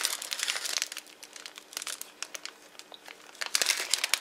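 Clear cellophane gift bags crinkling as they are handled, with crackling in the first second and again near the end, quieter in between.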